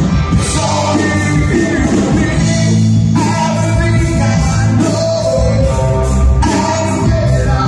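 Live rock band playing: electric bass, electric guitar and drum kit with a steady beat, and a man singing lead into a microphone.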